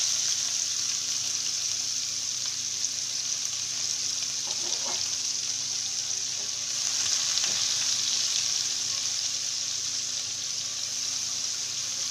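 Sliced onions sizzling steadily in hot frying oil in a pan, just after being added.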